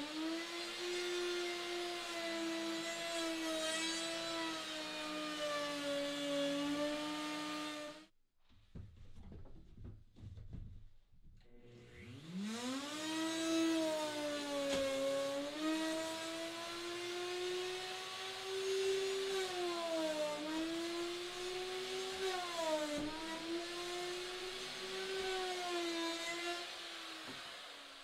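Electric wood router running at high speed, cutting through the plywood roof to open a hatch hole. It stops about eight seconds in, starts again about four seconds later, its pitch dips twice as the bit loads up in the cut, and it winds down near the end.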